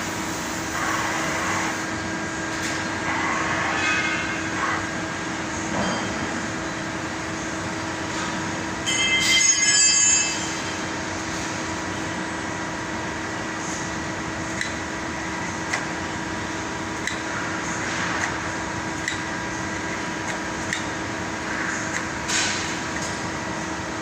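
Mazak Multiplex 610 CNC lathe and its Flex GL50N robot loader working: a steady machine hum under short servo-driven whirs of the robot axes and chuck, a louder high-pitched burst lasting about a second around nine seconds in, and scattered sharp clicks later on.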